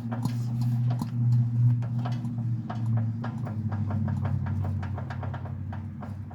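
An 18.5 hp Briggs & Stratton garden tractor engine being turned over by hand, heard up close through the engine block: irregular clicking and knocking, several a second, as the crankshaft is rocked back and forth, over a steady low hum. The owner takes the clicking for rod knock, with part of the noise from compression and some rattling from a loose part.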